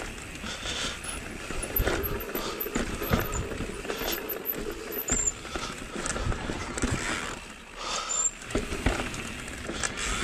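Mondraker Level R electric mountain bike riding fast down a rocky singletrack: tyres rolling over rock slabs and packed dirt, with many short knocks and rattles as the bike hits bumps.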